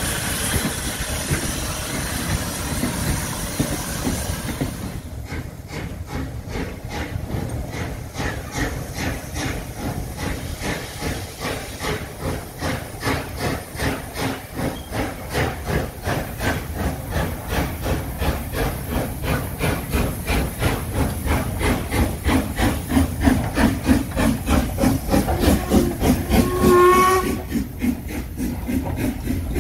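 Steam hissing for the first few seconds, then the regular chuffs of LMS rebuilt Royal Scot 46100's three-cylinder exhaust, growing louder as the locomotive approaches and passes with its train. A brief whistle sounds shortly before it passes.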